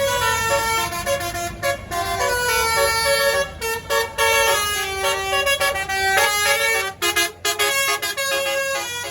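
Basuri telolet horn on a tour bus playing a quick melody, its notes stepping up and down several times a second with a few short breaks, over the low rumble of the bus engine.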